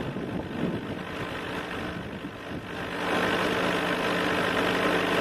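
Two-stroke racing kart engines running at speed around the circuit, a steady drone that grows louder about three seconds in as a pair of karts approaches.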